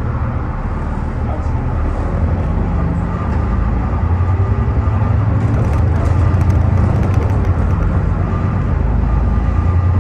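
A bus running under way, a low engine drone that grows louder about halfway through as it pulls harder, with a spell of fast metallic rattling a little past the middle. The bus is known for an awful metallic sound.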